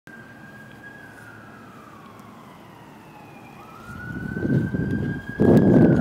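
Police car siren on a slow wail, its pitch gliding down and then rising again about three and a half seconds in. From about four seconds in, a loud rushing rumble builds up underneath it and jumps louder near the end.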